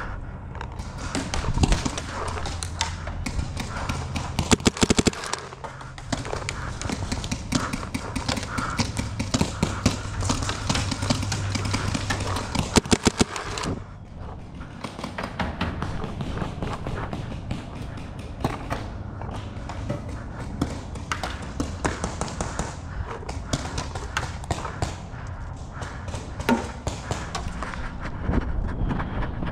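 Paintball markers firing in two quick bursts of sharp pops, about five seconds in and again about thirteen seconds in, amid a steady run of smaller knocks and rustling.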